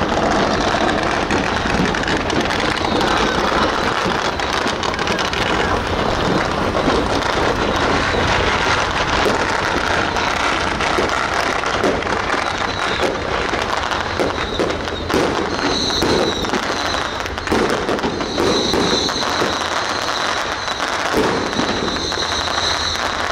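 Strings of firecrackers crackling continuously, a dense rapid popping that grows thicker about halfway through. A steady high tone joins in about two-thirds of the way in.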